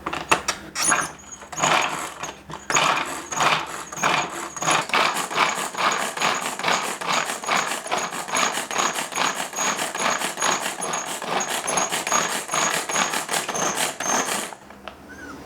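Hand-operated food chopper chopping ginger cubes, its blades spun in quick repeated strokes, about three a second, with a ratcheting mechanical rattle; it stops about a second before the end.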